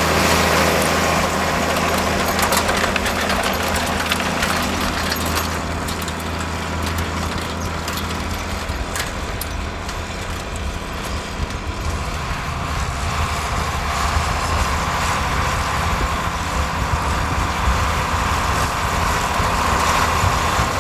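1982 John Deere 4640's turbocharged, intercooled 7.6-litre (466) diesel engine running steadily as the tractor works the field with a rolling harrow. It is a little louder at the start and again near the end, with a few sharp knocks over it.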